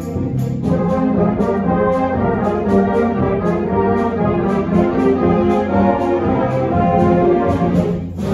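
A school orchestra playing live, with the brass section to the fore: held brass chords and rhythmic figures over a bowed or plucked string bass. The full ensemble comes in about half a second in and breaks off briefly near the end.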